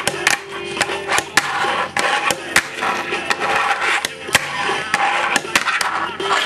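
Fingerboard being flicked and landed on a tabletop: a rapid, irregular series of sharp plastic-and-wood clacks from tail pops, landings and the small wheels hitting the table.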